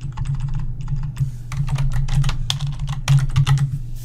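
Typing on a computer keyboard: quick runs of keystrokes with short pauses between them, over a steady low hum.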